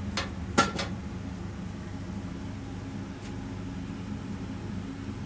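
Three quick clinks of kitchen utensils in the first second, the second one loudest and ringing briefly, over a steady low hum.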